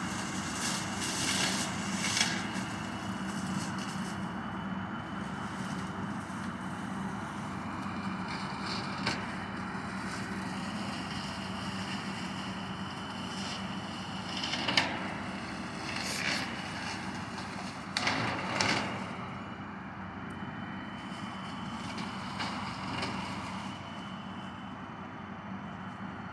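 Tractor engine running steadily, with several short sharp cracks now and then.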